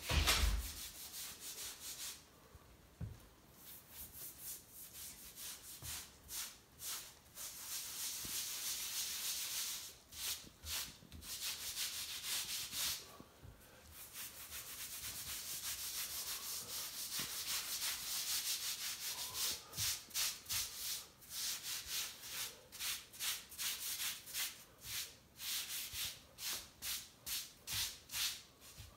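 A damp grout sponge scrubbing across Saltillo tile, wiping wet grout off the tile faces, in repeated swishing strokes that come quicker, about two a second, in the last third. A knock at the very start is the loudest sound.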